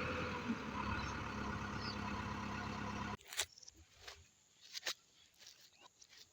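Heavy diesel machinery engine running steadily, cut off abruptly about halfway through. After that it is much quieter, with a few sharp knocks.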